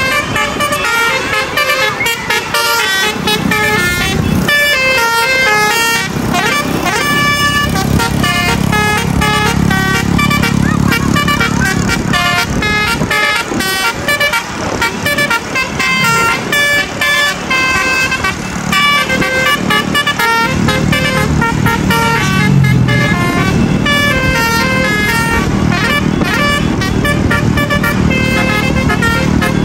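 Bus basuri (telolet) musical air horns playing quick stepped melodies over and over, with the bus engines running underneath.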